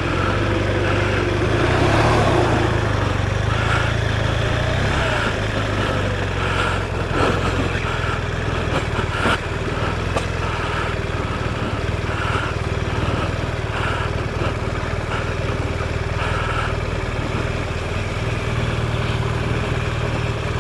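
BMW R1200RT motorcycle's flat-twin engine running steadily.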